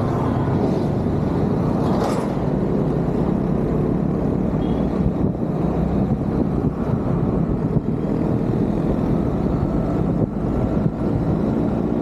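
Onboard ride noise from a motorbike in city traffic: a steady low rush of wind and the bike's engine running, with the traffic around it. A brief swell comes about two seconds in.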